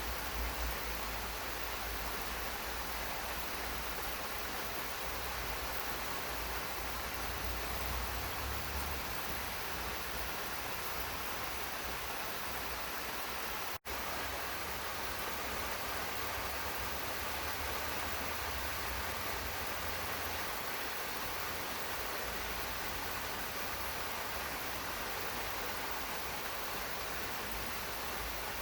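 Steady rain falling, an even hiss with a low rumble underneath. It cuts out for an instant about halfway through.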